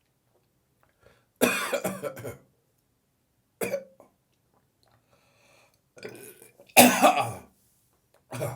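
A person coughing in separate fits. A run of harsh coughs comes about a second and a half in, then a single cough, and the loudest burst of coughing comes around seven seconds, followed by one more cough at the end.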